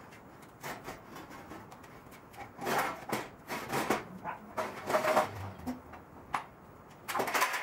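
Irregular knocks and clanks of a rigid aluminum conduit frame and its clamps being handled and shifted, quiet at first, with clusters of clatter from about two and a half seconds in and again near the end.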